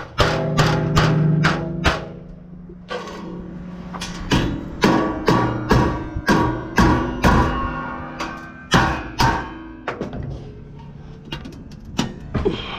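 A hammer striking stainless steel sheet, over and over, to bend a cut floor panel. The blows come in quick runs of two to three a second, each with a short metallic ring, and pause briefly about two seconds in.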